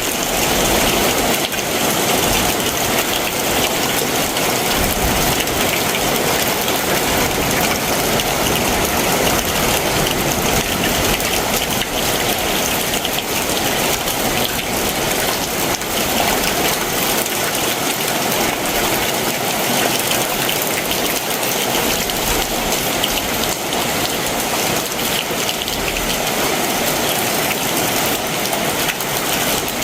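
Heavy summer monsoon downpour falling steadily.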